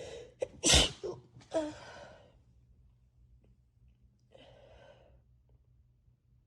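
A person with a cold sneezing once: a quick breathy intake, then a sharp, loud sneeze under a second in, followed by a voiced, sighing exhale. A softer breath comes near the end.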